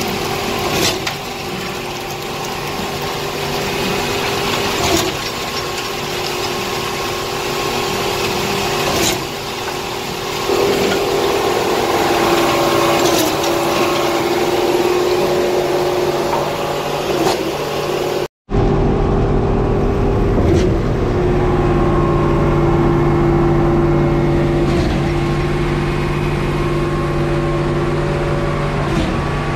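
Diesel engines of a concrete mixer truck and concrete pump running steadily at raised revs while concrete is pumped. A knock comes about every four seconds, with a brief dip in the engine note, as the pump strokes. The sound cuts out for an instant a little after halfway.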